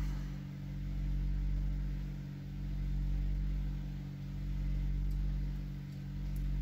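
Steady low electrical hum at mains frequency with a stack of overtones, swelling and fading slowly about every two seconds.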